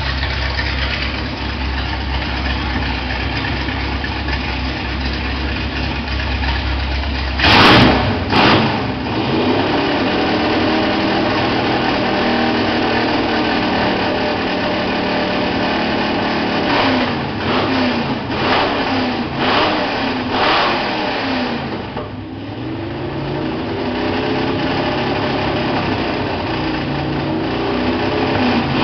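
Dodge V8 engine idling with a deep steady rumble. About seven seconds in there is a couple of loud sharp bursts, and it is then revved: several quick throttle blips, and later a slower climb and fall in revs near the end.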